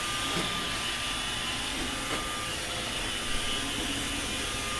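iRobot Roomba 561 robot vacuum running: a steady whir of its vacuum motor and brushes with a thin, steady whine, and a couple of faint knocks.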